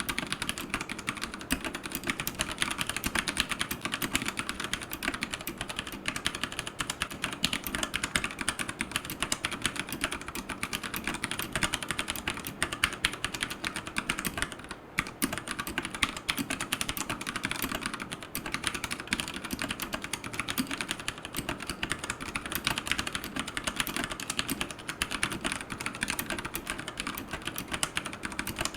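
Fast, continuous typing on a Royal Kludge RK100 mechanical keyboard with brown tactile switches and AKKO clear keycaps, a rapid stream of key clicks with a brief pause about halfway through.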